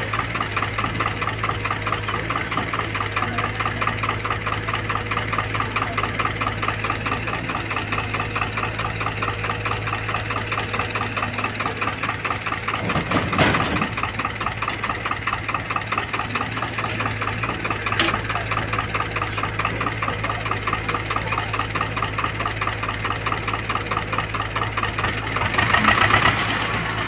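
SDLG crawler excavator's diesel engine running steadily with a fast, even pulsing beat. About halfway through, a bucketload of soil pours into a steel tractor trailer with a short rushing clatter. The engine swells louder briefly near the end.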